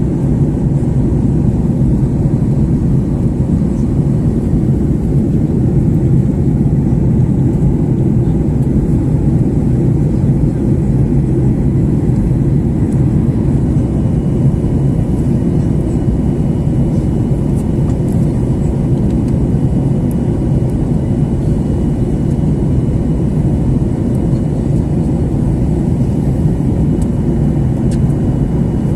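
Steady low cabin noise of an airliner in flight: engine and airflow noise heard from inside the passenger cabin, level and unchanging.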